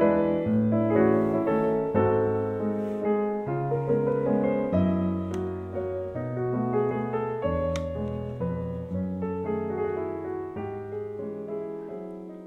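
Piano music playing, fading out near the end.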